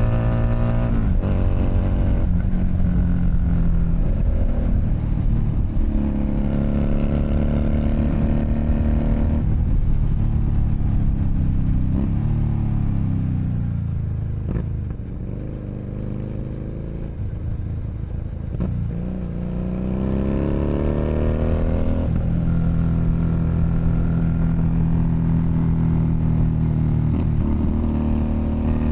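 Keeway SCR 250V motorcycle running through a custom short, chopper-style exhaust, pulling with its pitch stepping between gears; it eases off to a quieter, falling note in the middle, then accelerates again about two thirds of the way in and holds a steady note.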